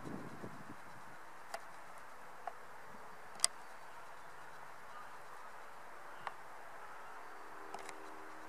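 Faint steady outdoor background hiss broken by a handful of sharp, isolated clicks, the loudest about three and a half seconds in.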